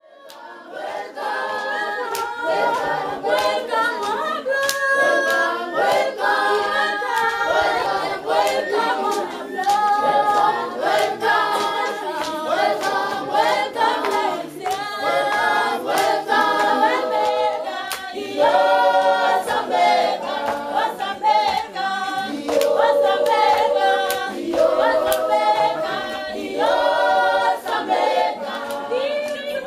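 A group of children and women singing together unaccompanied, with hand clapping. The singing fades in at the start.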